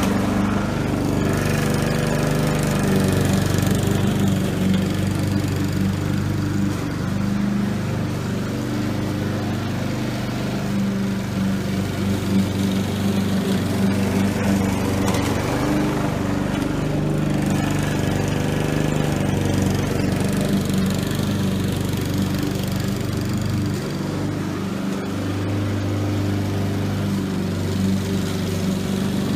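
Honda HRR216 self-propelled rotary lawn mower with its single-cylinder gas engine running steadily while it cuts grass. The engine note and level swell and ease slightly as the mower is pushed back and forth across the lawn.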